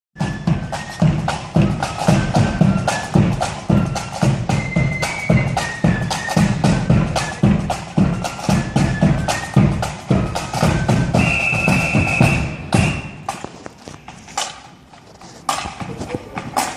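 Marching band playing a tune over a steady bass drum beat. The tune stops about 13 seconds in, leaving only quieter sharp taps keeping time.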